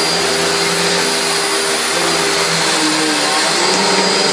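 Panasonic MC-E42N bagged upright vacuum cleaner's 650-watt motor running at full power on carpet, a steady loud rush of air with a high whine. Its lower hum shifts slightly in pitch near the end as the machine is stood upright.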